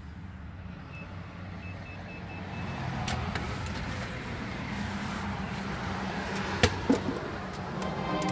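A front door being opened by hand: the knob turns and the latch clicks sharply about two-thirds of the way in, with a smaller click just after. Shuffling and handling noise from a cardboard tube being carried runs over a steady low background hum.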